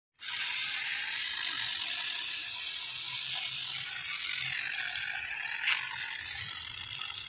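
Car-wash shampoo foam fizzing and crackling on the window glass as its bubbles pop: a steady, high-pitched crackling hiss.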